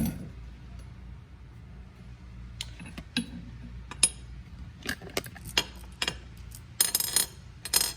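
Small metal parts and hardware from a motorcycle handlebar removal clinking and tapping as they are handled and set down: a scatter of separate clicks, busiest near the end.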